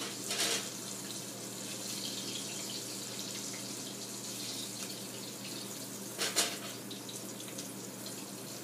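Battered pork shoulder pieces deep-frying in hot oil in an enamel pot, a steady sizzle of the crust crisping up. A short knock about six seconds in.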